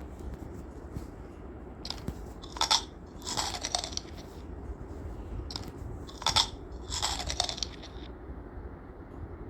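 A crunchy cookie being bitten and chewed: two rounds of crisp crunching, each a sharp crunch followed by a longer crackle, about three and a half seconds apart.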